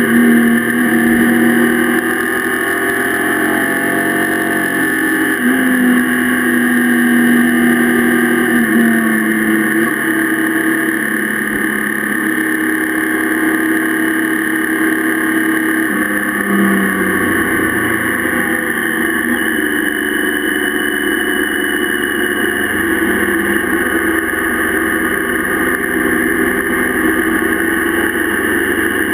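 Motorcycle engine running on the road, its note shifting up and down several times with throttle and gear changes, over a steady rush of wind.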